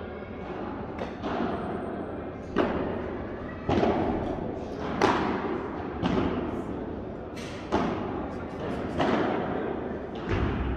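Padel balls being struck and rebounding on neighbouring courts, heard as irregular thuds that echo through a large hall, roughly one a second, over a low murmur.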